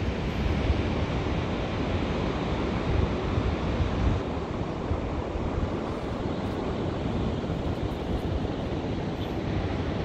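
Steady wash of Pacific Ocean surf, with wind buffeting the microphone in an uneven low rumble.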